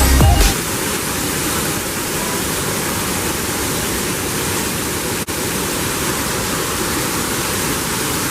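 Steady rush of a waterfall, water falling continuously, after a burst of electronic music cuts off about half a second in.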